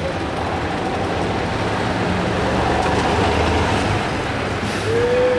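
Engine of a truck converted into a passenger bus, running as it drives up and passes close by, growing louder toward the middle. A short pitched call sounds near the end.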